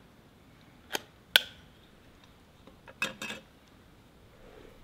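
A ring-pull food can being opened and emptied: a few sharp metallic clicks and clinks, the loudest about a second and a half in with a brief ring, then a short clatter about three seconds in as the contents go into the pot.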